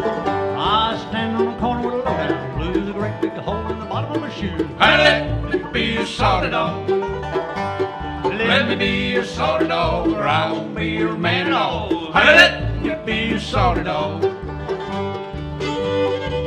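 Bluegrass band playing live, with banjo, fiddle, mandolin, acoustic guitar and upright bass.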